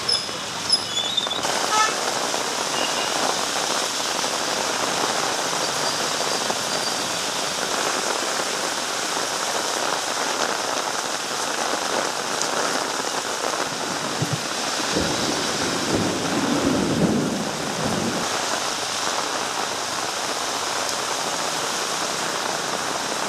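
Heavy rain pouring steadily, with a low rumble for a few seconds about two-thirds of the way through.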